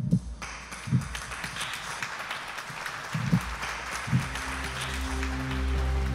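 Audience applauding, with a few deep thuds in the first four seconds. Music with long held notes fades in about halfway through and grows louder toward the end.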